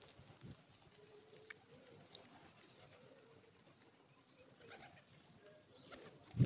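Rock pigeons cooing softly, with scattered wing flaps from birds moving about. Right at the end a loud flutter of wings sounds close by as a pigeon flies past.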